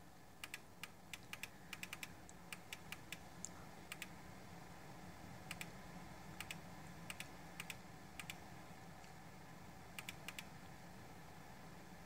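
Cisno glass electric kettle heating water just short of its set temperature: faint, irregular ticking and crackling, the clicks coming singly and in quick clusters of two or three.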